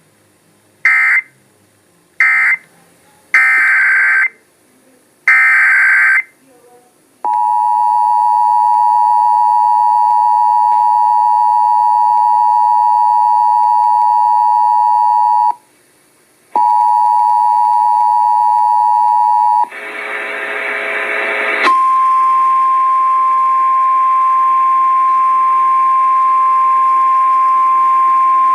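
Emergency Alert System signal. First come four short screeching bursts of SAME digital data. Then the two-tone attention signal (853 and 960 Hz together) sounds for about eight seconds, breaks off briefly and resumes for three more. After a couple of seconds of radio noise, the single steady 1050 Hz NOAA Weather Radio warning alarm tone begins and holds.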